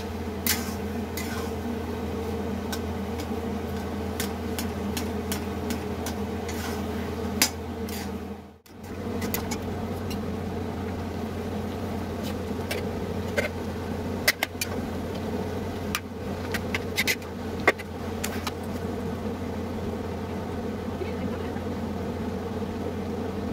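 A steady low mechanical hum, with occasional clicks and scrapes of a spatula against an iron kadhai as carrot halwa is stirred and roasted, mostly in the first several seconds and again around the middle. The sound drops out for a moment about eight seconds in.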